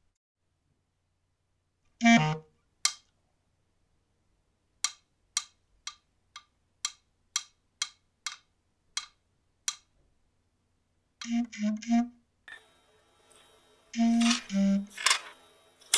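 Short clarinet notes, then about ten light clacks at roughly two a second, a wooden marionette's feet tapping the floor. Near the end come more short clarinet phrases with a noisy rustle.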